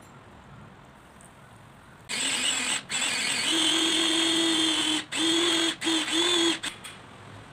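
Small electric mini food chopper's motor whirring as its blades chop vegetables: a steady whine that starts about two seconds in, stops briefly several times as it is pulsed, and cuts off near the end.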